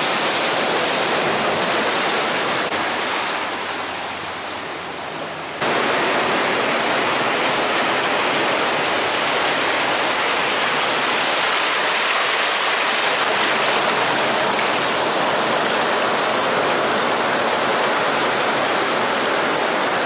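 Surf on a rocky beach: a steady rushing hiss of water. It dips a little around four seconds in, then jumps abruptly back to full level just before six seconds in.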